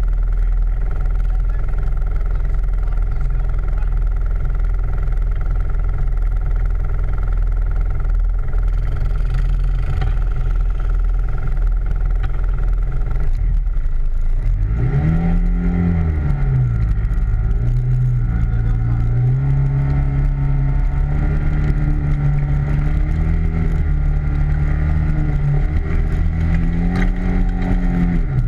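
ATV engine running steadily at first, then about halfway through revving up and down and holding at a higher, wavering pitch as it pulls along, over a constant low rumble.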